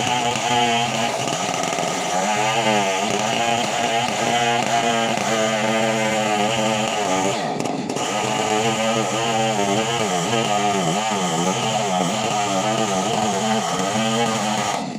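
Chainsaw engine running hard, its pitch rising and falling over and over, with a brief dip a little past halfway.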